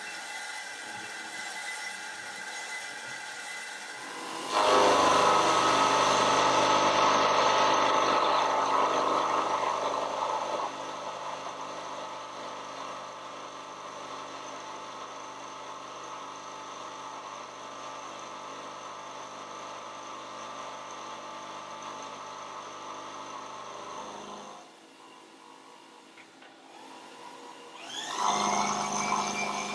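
A metal shop machine, then a manual milling machine's end mill cutting a metal T-nut blank, a steady hum of many tones that turns much louder about four seconds in. The milling noise drops away about 24 seconds in, and near the end a motor spins back up with a rising whine.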